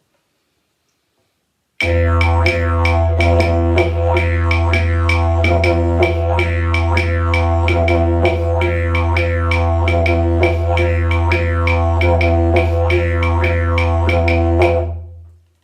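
Didgeridoo played in a fast, even rhythm over its continuous low drone. It starts abruptly about two seconds in and fades out near the end.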